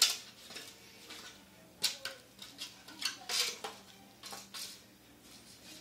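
A kitten knocking a small bowl about on a tile floor: the bowl clatters and scrapes in a run of irregular sharp knocks, the loudest right at the start.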